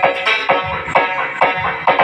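Music with a steady beat, about two hits a second, played through a P Audio EM 12-LB300 loudspeaker during a sound test.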